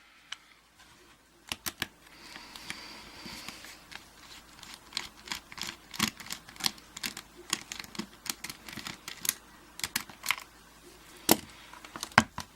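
Irregular small metallic clicks and taps of an American 1305 padlock being taken apart with hand tools, with a faint scratchy rasp about two to three seconds in.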